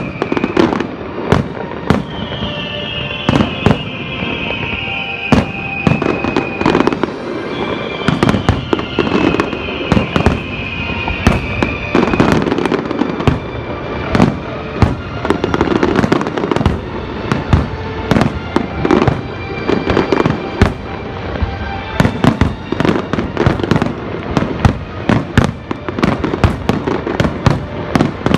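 Fireworks display: a dense, irregular run of bangs and crackling bursts, with several falling whistles from whistling shells over roughly the first twelve seconds.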